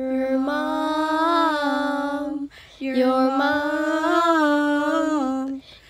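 A girl's voice singing two long held notes without accompaniment, each about two and a half seconds, with a short break between them.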